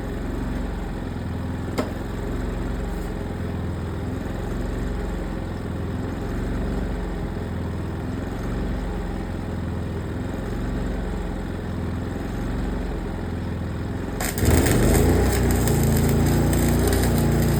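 An engine running steadily at idle; about fourteen seconds in, a welding arc is struck and a loud, steady crackling hiss starts over the engine.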